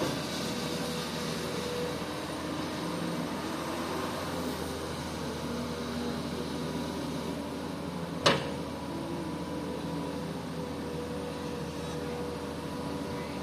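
Komatsu PC200 hydraulic excavator's diesel engine running steadily, a droning hum with a few held tones. A single sharp knock about eight seconds in.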